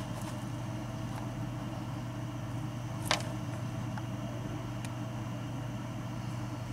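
Steady low hum with one short, sharp click about three seconds in.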